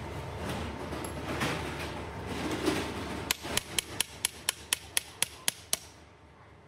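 Rapid hammer blows on a steel driver seating a ball bearing in a cycloidal pinwheel reducer: about eleven sharp metallic strikes at roughly four a second, starting about halfway through and stopping shortly before the end.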